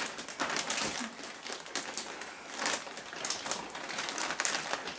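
Irregular crinkling and rustling of the plastic liner of an inflatable birth pool as hands move against it, a quick run of uneven rustles.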